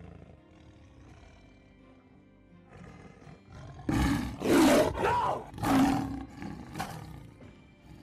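Bengal tiger roaring and snarling: three loud roars in quick succession starting about halfway in, over a soft film score.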